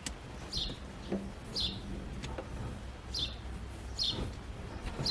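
A bird chirping repeatedly, short falling chirps about once a second, with a few faint clicks in between.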